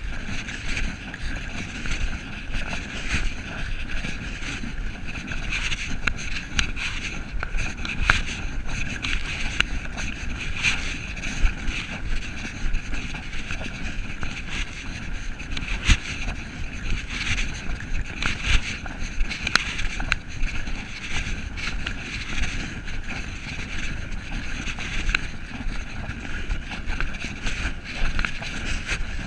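Walking noise picked up by a body-worn camera: cloth rubbing and rustling over the microphone, with irregular small knocks and wind on the microphone.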